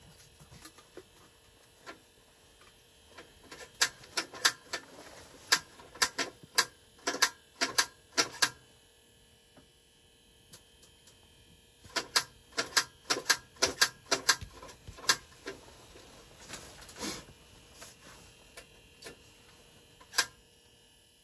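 Sharp clicks and knocks from hands working at a portable unit, in two bunches of quick taps, one about four seconds in and one around twelve seconds, with a few single clicks later.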